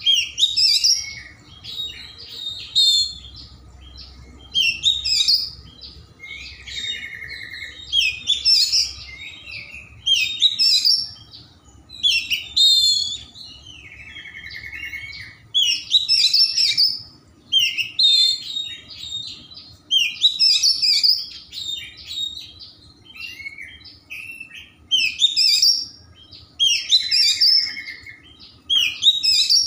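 Oriental magpie-robin singing hard: loud, varied whistled phrases every second or two, with a few short buzzy trills mixed in.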